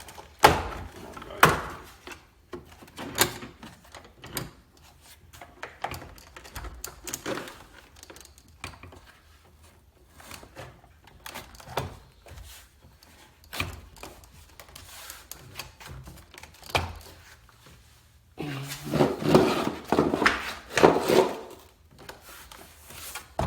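Chevy Impala plastic door trim panel being worked onto the door, with scattered knocks and thumps as it is positioned and its clips are pushed home. A busier stretch of knocking and rubbing comes about three quarters of the way through.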